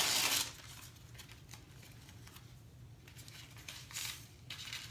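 Sanitary pad and its paper wrapper rustling and crinkling as they are handled and peeled apart. There is a sharp crackle at the start, soft rustles after, and another short stretch of crinkling near the end.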